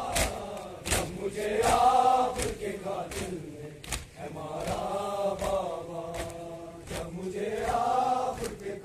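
Crowd of men chanting a Muharram noha lament in unison, in repeated rising-and-falling phrases, over a steady beat of sharp slaps from mourners beating their chests (matam).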